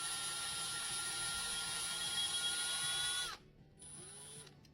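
Small power drill with a 2 mm bit drilling a pilot hole into a die-cast car's rivet post. It makes a steady motor whine that winds down about three seconds in, then gives one brief, quieter second run.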